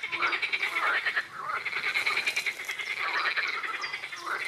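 Many frogs croaking together in a dense, unbroken chorus of overlapping, fast-repeated calls.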